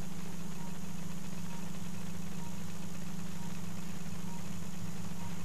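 Steady low mechanical hum of operating-room equipment, with a fainter pulsing hum beneath it.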